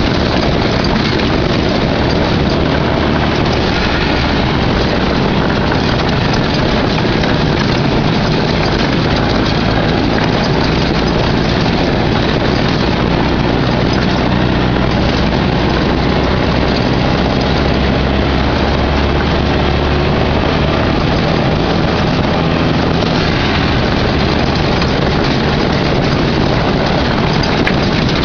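Off-road buggy engine running steadily as the buggy drives over a rocky dirt trail, heard as a loud, even rush of engine and driving noise.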